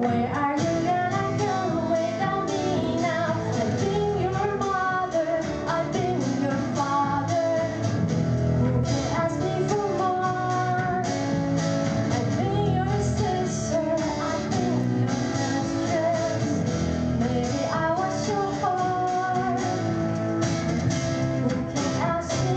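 A woman singing a pop-rock song over guitar and band accompaniment.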